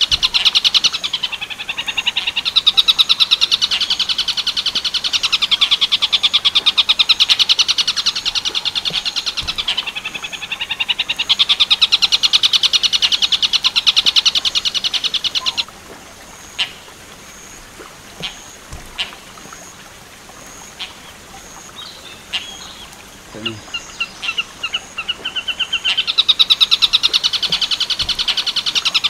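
A bird's very fast, harsh rattling trill in the 'tengkek buto' style, run on in long loud bursts. About halfway through it stops for roughly ten seconds, leaving only scattered short chips and a brief faint twitter, then the rattle starts again near the end.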